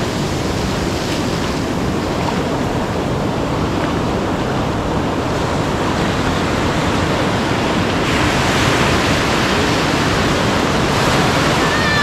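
Ocean surf breaking and washing up a sandy beach, with foam running over the shallows close by. The wash grows louder about two-thirds of the way through and again near the end.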